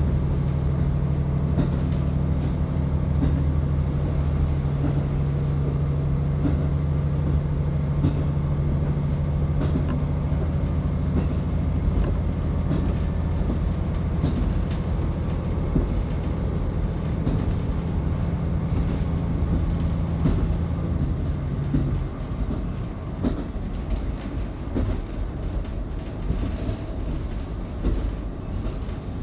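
KiHa 40 series diesel railcar heard from inside the carriage: the underfloor diesel engine drones steadily under the running train. About 22 seconds in the engine note drops away, leaving the rumble of the wheels and scattered clicks over rail joints.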